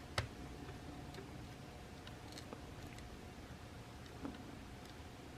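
A few faint, sharp clicks and ticks of small tools handling tiny phone parts, the sharpest about a quarter second in, over a faint steady hum.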